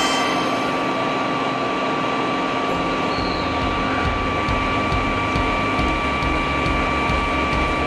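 CNC machining centre drilling stainless steel with a solid carbide drill under internal coolant: a steady spindle whine over coolant hiss, with a low rumble of the cut building up about three seconds in.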